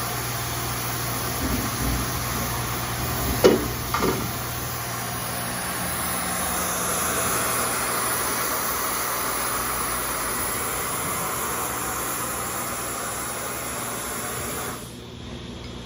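Hypertherm Powermax 125 plasma torch cutting steel plate on a CNC table: a steady loud hiss over a hum, with two short clicks about three and a half seconds in. The hiss cuts off suddenly near the end as the arc goes out.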